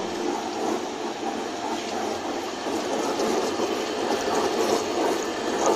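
Hanging-type high-speed disperser running steadily: its electric motor and the blade churning liquid in a plastic bucket make an even whirring noise.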